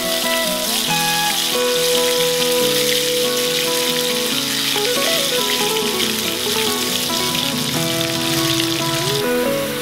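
Chopped tomato frying in oil in a pan, a steady sizzle as it is stirred with a wooden spatula; the sizzle falls away about nine seconds in. Background music with a melody plays over it.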